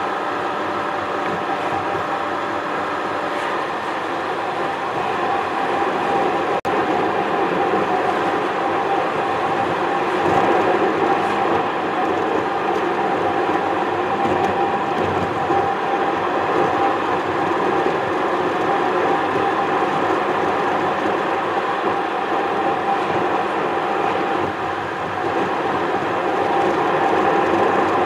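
Steady road noise inside a moving car: tyre rumble and engine hum at cruising speed, picked up by a dashcam, with one sharp click about six and a half seconds in.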